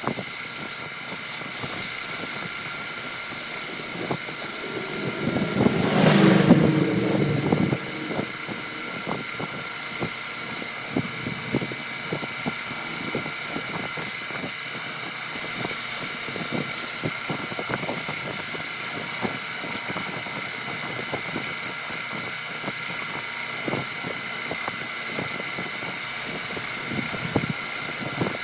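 Electric power tool motor running steadily with a high whine and scattered small ticks, swelling louder and deeper for a couple of seconds about six seconds in.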